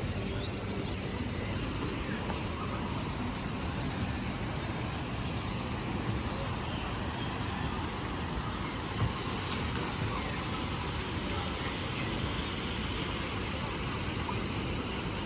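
Steady rumbling background noise with a faint, high, steady whine over it, and a single short knock about nine seconds in.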